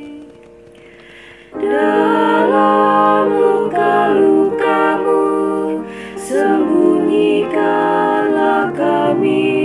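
Four-part SATB hymn singing by one female singer multi-tracked into soprano, alto, tenor and bass parts, holding sustained chords. After a brief quieter gap, the voices come in together about a second and a half in.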